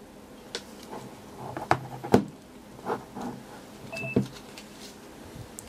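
Hands handling a camcorder and pressing its buttons: a string of separate clicks and knocks, with a short electronic beep about four seconds in.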